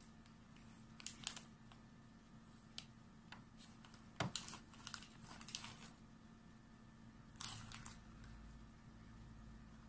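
A plastic cat-treat packet crinkling faintly as it is handled, in a few short rustles: about a second in, several around the middle, and once more later on.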